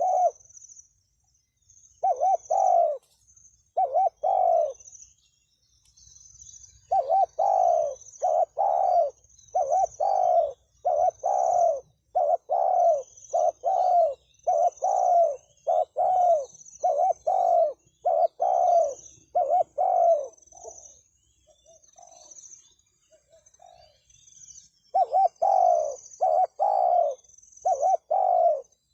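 Spotted dove cooing close by: runs of short, low coo notes, including a long unbroken series of about two a second. There is a pause of a few seconds near the end, then the cooing resumes.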